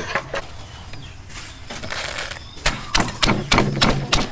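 Wooden pestle pounding green chilies in a wooden mortar: a steady run of dull thuds, about three to four a second, starting about two and a half seconds in.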